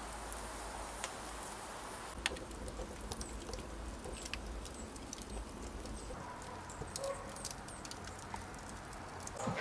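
Wood fire crackling in a brick oven, scattered sharp pops and snaps over a steady hiss, while the oven heats up and the soot burns off the dome.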